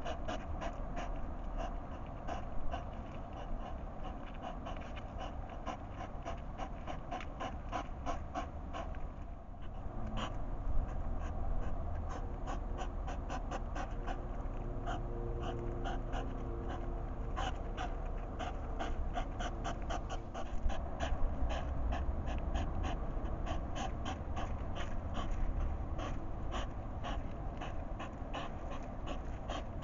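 Hedgehogs eating at a food bowl: rapid, irregular chewing clicks, several a second, with snuffling breaths.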